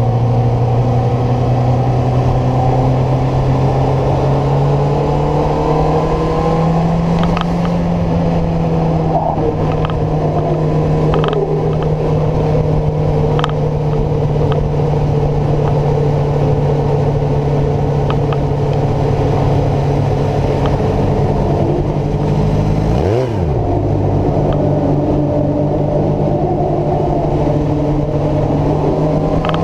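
Kawasaki ZZR600E inline-four engine running hard at sustained high speed, its pitch steady with a slight rise about six seconds in. A brief drop and recovery in pitch comes a little over twenty seconds in.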